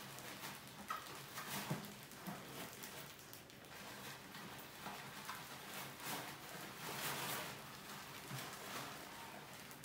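Mice scurrying and scrabbling in and around a clear plastic bucket trap: an irregular patter of small scratches, scrapes and light clicks of claws on plastic and wood.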